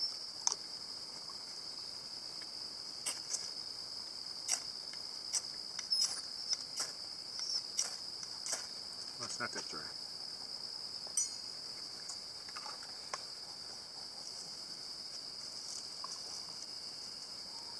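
A fire steel struck about eight times in quick succession, sharp scrapes throwing sparks onto a tinder bundle until it catches. Behind it a steady high-pitched insect chorus of crickets and katydids.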